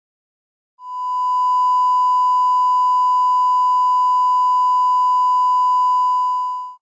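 Colour-bar line-up test tone: a single steady, loud pure beep that starts just under a second in and holds for about six seconds before cutting off abruptly.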